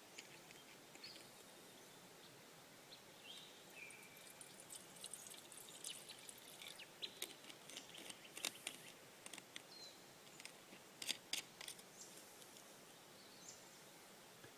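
Faint outdoor ambience with a few short chirps in the first few seconds, then a run of small sharp clicks and taps in the middle, the loudest a couple of quick taps about eleven seconds in.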